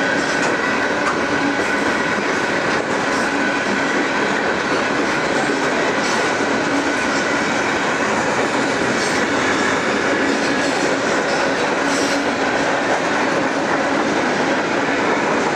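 Freight cars rolling steadily past on curved track: continuous wheel-on-rail rolling noise and rattle, with occasional clacks over rail joints and a faint steady high squeal.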